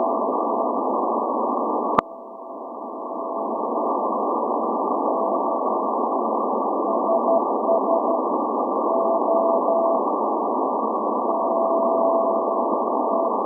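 Shortwave Morse code from the SVO Athens maritime coast station on 8424 kHz: a single beat tone keyed on and off in dots and dashes, the station's channel marker sending its call letters SVO. It sits in a steady hiss of band noise. A sharp click comes about two seconds in, after which the hiss drops and climbs back over a couple of seconds.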